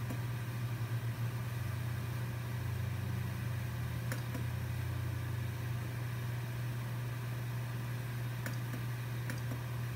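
Geeetech A10 3D printer sitting powered on and idle, its cooling fans running with a steady low hum. A few faint clicks come about four seconds in and twice near the end.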